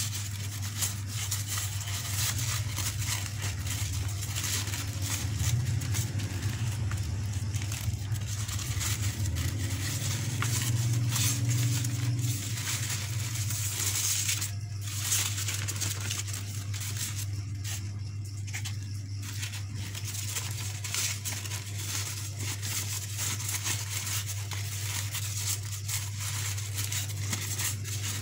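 Crepe paper rustling and crinkling unevenly as it is rolled and pinched into rose petals by hand, over a steady low hum.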